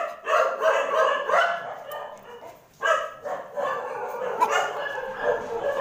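Kintamani dogs barking and yapping rapidly and repeatedly, with the barks overlapping and a brief lull nearly three seconds in.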